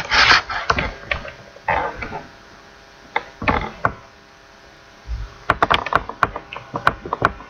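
A rustle near the start and again about two seconds in, then a quick run of small sharp clicks in the last two seconds, over a faint steady hum.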